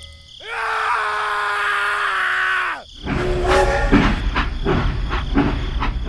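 A drawn-out, voice-like groan held at one pitch for about two and a half seconds, sagging at the end. It is followed by a rumbling clatter of repeated knocks.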